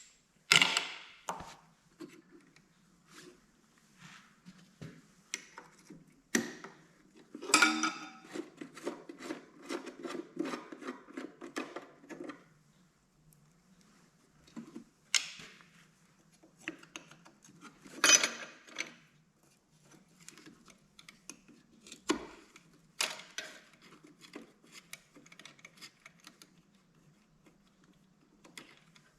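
Hand tools and loose metal parts clattering while cylinder head bolts are taken out of a Kohler K241 engine: scattered sharp clinks and knocks, with a rapid rattling run of about five seconds near the middle.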